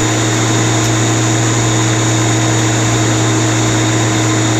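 Ryobi corded electric lawn mower, its 11-amp motor spinning the 16-inch blade at full speed: a loud, steady, high-pitched whine over a low hum. Its sound is described as higher pitched and more grating than a cordless EGO mower's, peaking at 93 decibels.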